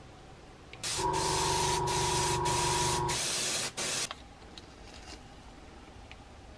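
Airbrush spraying, a loud hiss broken by a few short pauses, over the steady hum of its small air compressor. The hum stops about three seconds in and the hiss about a second later.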